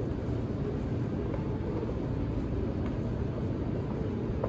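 Steady low rumble and hiss of background noise, with a few faint clicks about three seconds in and near the end.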